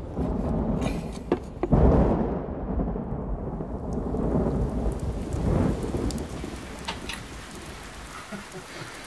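Thunder rumbling, loudest about two seconds in and rolling away over the next few seconds, with steady rain falling.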